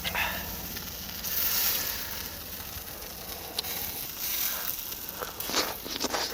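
Duck meat sizzling over a charcoal grill, a steady hiss with a louder swell about a second in and several sharp crackles near the end.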